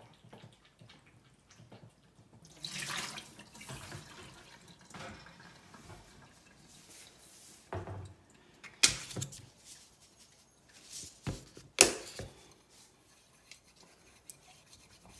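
Washing up at a stainless steel kitchen sink: tap water running and splashing while a glass water bowl is rinsed, with two sharp knocks in the second half, the loudest sounds here.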